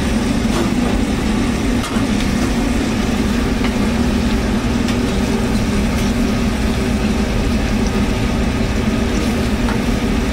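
Loud steady mechanical drone of commercial kitchen machinery, a low hum that never changes. A long metal spoon stirring salmon liver and onions in an aluminium sauté pan adds a few light scrapes and clinks.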